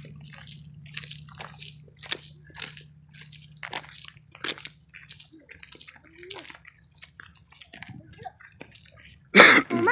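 Footsteps crunching on a gritty paved trail at a walking pace, about two steps a second, with a loud brushing burst near the end.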